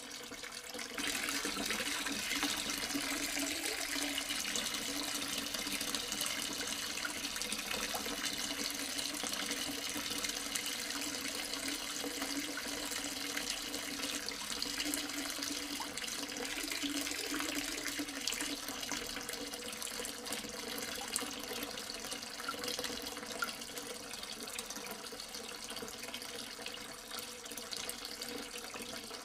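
A thin jet of water from a small plastic tube splashing onto a toy backhoe loader and wet sand, a steady running-water hiss that gets louder about a second in.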